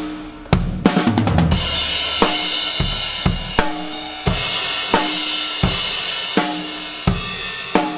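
Acoustic drum kit playing a pop song's drum intro. A quick fill with low tom hits comes in the first second and a half, then a driving kick-and-snare beat under washing Zildjian cymbals, ending on an accented crash.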